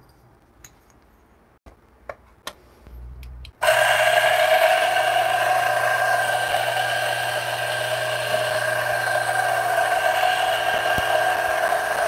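A few light clicks and taps, then about three and a half seconds in a DF64 espresso grinder switches on and grinds a dose of coffee beans fine for espresso. Its motor and burrs make a loud, steady whine with a low hum underneath.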